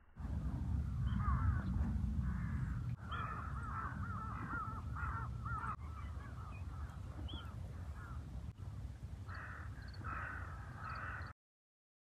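Crows cawing over and over, several calls overlapping, over a steady low rumble of wind on the microphone. The sound cuts off abruptly near the end.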